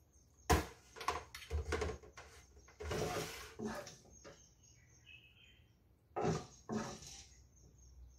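A spatula scraping across a nonstick frying pan and knocking against the pan and a plate while food is scooped out, in a series of short scrapes and taps with a longer scrape about three seconds in.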